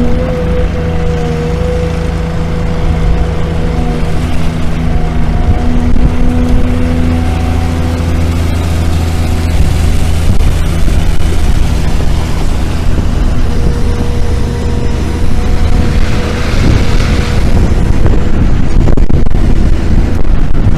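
Long-reach excavator's diesel engine running steadily with a hydraulic whine, as it digs and moves soil and rocks on the bank. A louder rush of noise comes about sixteen seconds in.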